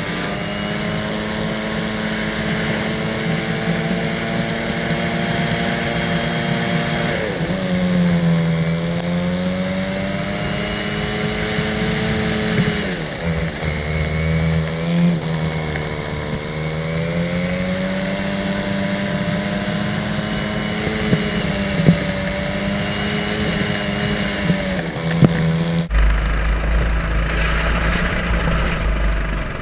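Racing kart engine running at high revs, its pitch dropping several times as the kart slows for corners and rising again under acceleration, with a few brief knocks in the second half.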